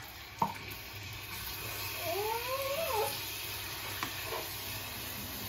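Water sizzling in a hot non-stick frying pan of frying food, just after a splash of water has gone in. A short rising cry, like a cat's meow, about two seconds in, and a light tap near the start.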